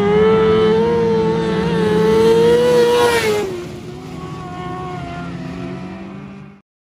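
TQ midget race car engine running at high revs. Its whine rises slightly, then drops in pitch and fades about three and a half seconds in as the car passes close and moves away. The sound cuts off just before the end.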